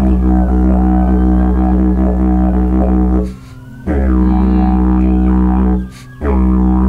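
Didgeridoo played as a steady one-note drone in three phrases of two to three seconds each, broken by short pauses for breath that are used as part of the rhythm.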